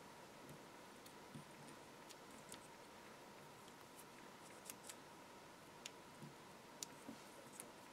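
Near silence with faint, scattered small clicks and ticks of metal tweezers and a die-cut paper layer being handled, as sticky foam pads are placed along its edge.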